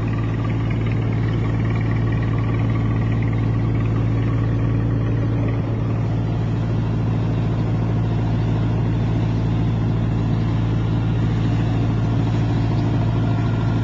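Boat engine running steadily, heard from on board: a constant low drone with a strong hum and an even wash of noise over it, unchanged throughout.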